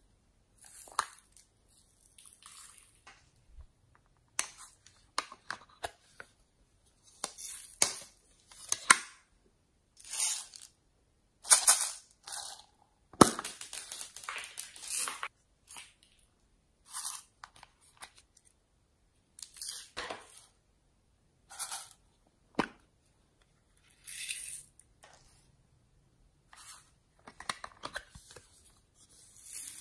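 Slime being squeezed and stretched by hand, giving short bursts of crackling and sharp pops separated by brief silences.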